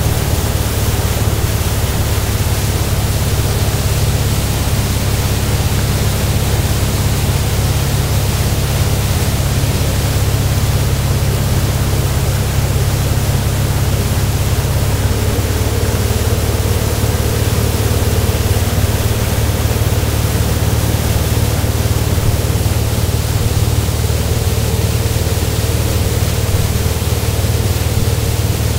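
MasterCraft towboat's inboard engine running steadily at towing speed as a low drone, under a loud rush of wind on the microphone and churning wake water. The engine's note shifts slightly about halfway through.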